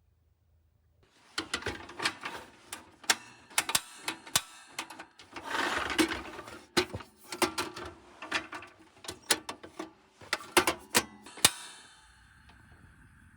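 Irregular knocks, clicks and clatters of objects being handled, running for about ten seconds with a short scraping rush in the middle, then stopping; a faint steady hum follows near the end.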